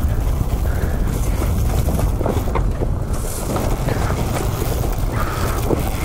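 Dirt bike engine running as the bike is ridden along a single-track trail, with wind buffeting the helmet microphone.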